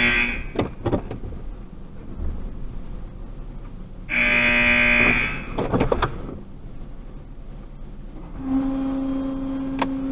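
Heard from inside a car in an automatic car wash: two loud, flat buzzing tones, each about a second long and about four seconds apart, each followed by a few sharp clicks. From about eight seconds in, a steady low hum sets in.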